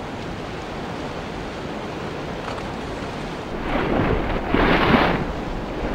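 Nyiragongo's lava lake bubbling and growling: a steady rumbling roar that swells into two louder surges about four and five seconds in, as lava spatters up.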